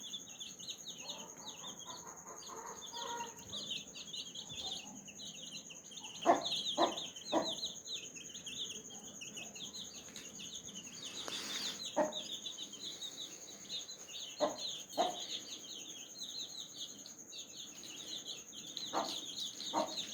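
Baby chicks peeping constantly, with a mother hen giving short clucks: three quick ones about six seconds in, then single or paired clucks later. These are the clucks a hen uses to call her chicks to food.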